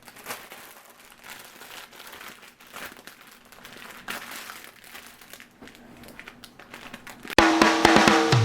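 Plastic bags of Lego pieces crinkling as they are handled, in short irregular rustles. Near the end, loud music with guitar and drums starts.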